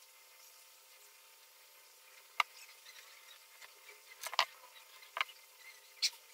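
Sparse small clicks and taps of plastic model-kit parts and tools being handled and set down on a work mat: one click about two seconds in, a quick cluster of clicks a little past four seconds, and single clicks after five and six seconds.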